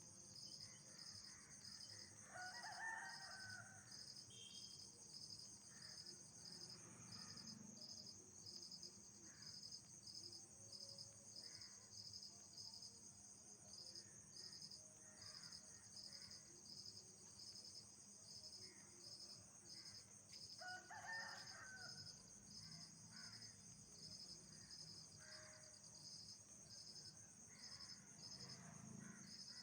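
Night chorus of insects such as crickets: a steady high trill with a regular pulsing chirp, about three pulses every two seconds. Two louder, lower calls stand out, about three seconds in and about twenty-one seconds in.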